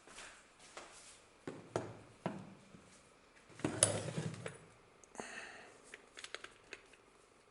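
Metal parts of an old powder-actuated nail gun being handled: scattered clicks and knocks, a louder clatter about four seconds in, a short rasp just after five seconds, then a few quick ticks.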